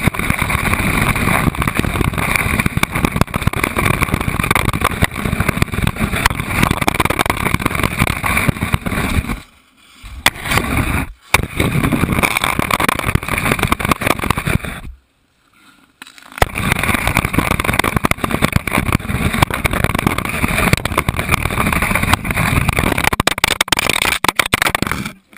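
Puck-mounted action camera sliding and skittering across rough outdoor rink ice: a loud, rattling scrape carried through the camera housing, with small knocks. It stops twice when the puck comes to rest, then starts again, and cuts off suddenly near the end.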